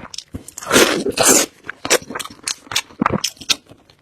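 Close-miked eating of pork knuckle: a string of short wet mouth clicks and smacks while chewing, with a longer noisy burst of chewing about a second in.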